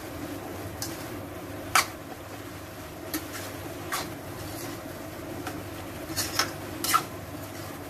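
A spatula stirring wet chopped spinach in a cooking pan, knocking and scraping against the pan a few times with a quick cluster of clinks near the end, over a steady low hum.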